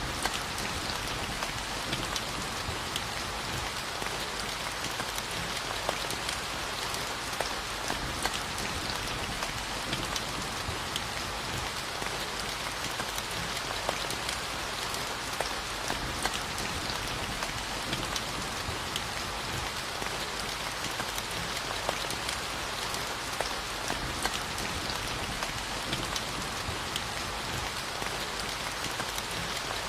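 Steady rainfall with many small scattered drop impacts. The even hiss sits mostly in the upper-middle range and does not rise or fall.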